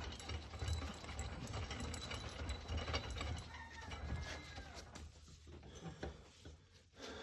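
Irregular metal clicks and rattles from hand-assembling an axle puller: a nut and washers being run onto threaded all-thread rod.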